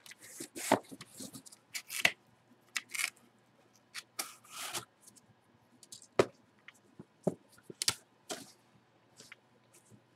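Irregular handling noises: short clicks, knocks and brief rustles of a plastic bag and a cardboard box being moved about.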